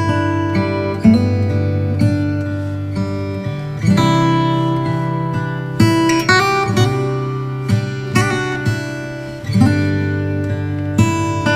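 Background music: acoustic guitar playing slow plucked chords.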